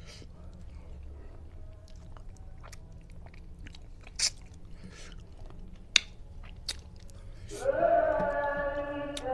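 Close-up eating sounds of a person picking at and sucking meat off a curried tilapia head by hand: wet chewing, lip smacks and finger-sucking clicks, with two sharper smacks about four and six seconds in. Near the end, music with held notes comes in and becomes the loudest sound.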